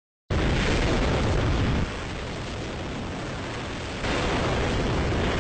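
Hydrogen–oxygen rocket engine firing on a test stand: a very loud, continuous roar that starts abruptly about a third of a second in. It drops in level for about two seconds midway, then comes back up.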